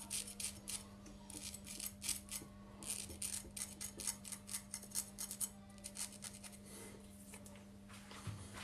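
Straight razor scraping through beard stubble on the cheek in short, quick, scratchy strokes, heard faintly over a steady low hum.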